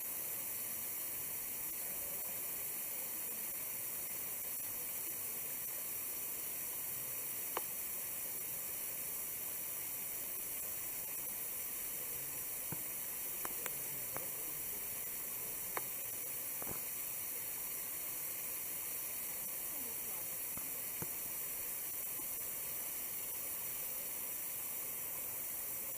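Waterfall rushing with a steady, even hiss of falling water. A few short, sharp clicks are scattered through the middle.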